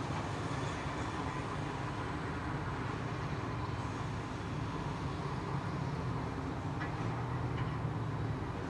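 Steady low rumble of heavy machinery running.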